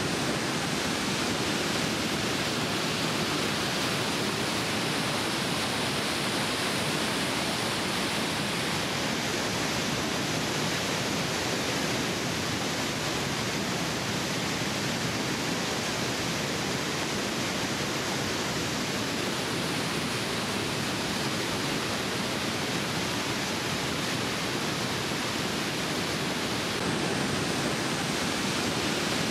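Waterfall and river rapids: a steady, unbroken rush of falling and churning water.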